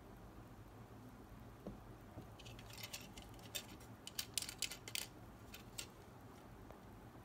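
Plastic parts of a 1:24 scale die-cast model car kit being handled: a flurry of light clicks and rattles starting about two and a half seconds in and ending near six seconds, loudest in the middle.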